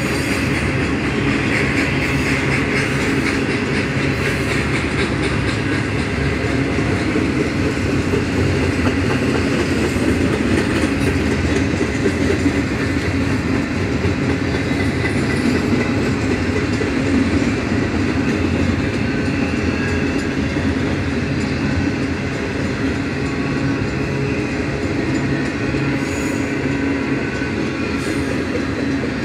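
Union Pacific double-stack intermodal train rolling past: a steady, loud running noise of steel wheels on rail as the loaded well cars go by.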